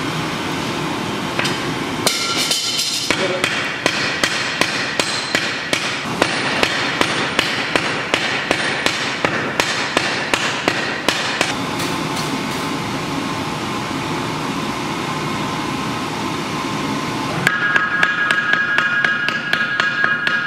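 Hammers striking red-hot steel on an anvil in a regular series of blows, about two a second, with a steadier stretch of shop noise in the middle. Near the end come quicker blows, and the anvil rings with a high tone under them.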